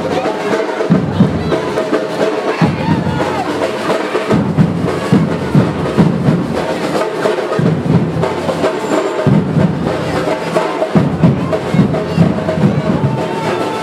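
Batucada drum band playing: bass drums beat a steady rhythm under dense percussion.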